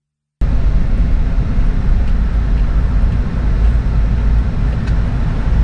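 Car on the move: a loud, steady low rumble of road and engine noise, starting suddenly about half a second in.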